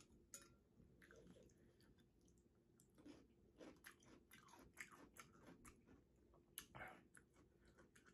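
Faint chewing: scattered soft, wet mouth clicks and a few small crunches of someone eating a pickle.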